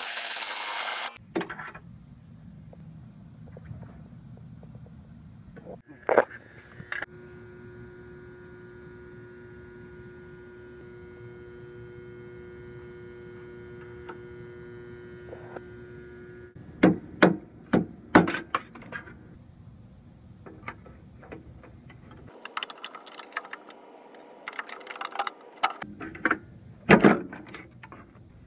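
Snap-on MG31 air impact wrench running on a suspension nut, cutting off about a second in. After it, a low steady hum with scattered metallic clinks and knocks of tools and parts being handled, thickest over the last several seconds.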